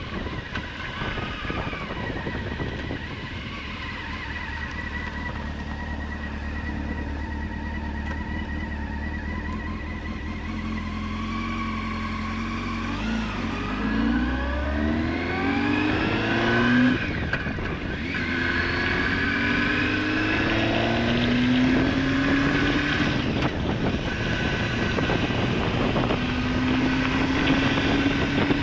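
Honda Hornet 900's inline-four engine on the road, running steadily at low revs, then accelerating through the gears from about halfway in. The pitch climbs, drops at an upshift, and climbs again twice, over a steady rush of wind.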